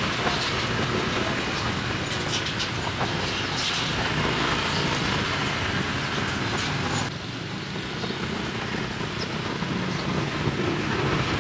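Street ambience: steady traffic noise with scattered clicks and clatter. The higher sounds drop away abruptly about seven seconds in.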